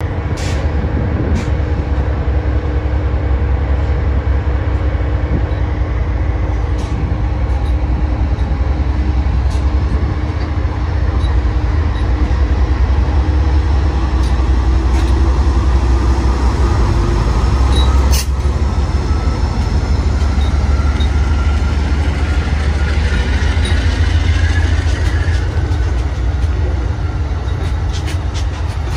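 Amtrak GE P42 locomotive's V16 diesel engine idling with a deep, steady rumble as the train rolls past. A sharp click comes about eighteen seconds in, and a higher tone rises over several seconds after it.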